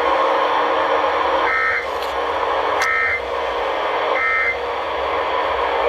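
Emergency Alert System end-of-message data tones from a radio receiver: three short buzzing bursts of digital code, about 1.3 s apart, over a steady hiss. They mark the close of the alert before the station returns to normal programming.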